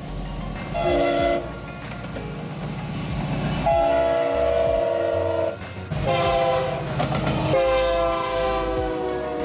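Diesel freight locomotives passing close with their engines rumbling, while a multi-chime locomotive air horn sounds a chord in four blasts: one short, then three long. It is the horn warning for a road grade crossing.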